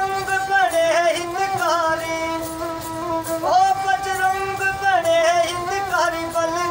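Ravanahatha, a bowed Rajasthani folk fiddle, played in long held notes that waver and slide, with a man singing a devotional bhajan along with it.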